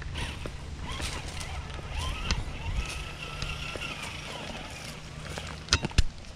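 Traxxas TRX-4 RC crawler's electric motor and drivetrain whining as it crawls over rocks, the pitch rising and holding as the throttle is applied, with a few sharp knocks near the end as the truck bumps on the rocks.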